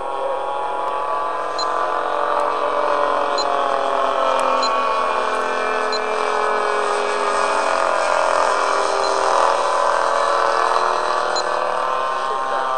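Radio-controlled Staggerwing biplane in flight: a steady droning engine-and-propeller note whose pitch wavers gently up and down.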